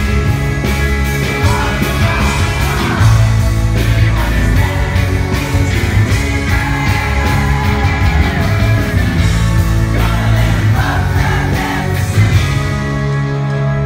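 Rock band playing live, with the lead singer singing into the microphone over electric guitar, bass and drums.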